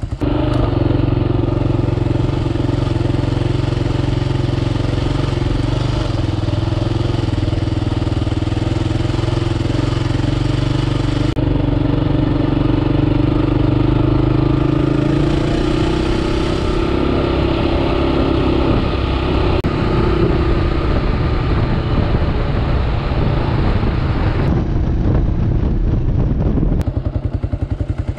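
Kawasaki KLR 650's single-cylinder engine running as the motorcycle is ridden, with the engine note rising about halfway through as it accelerates.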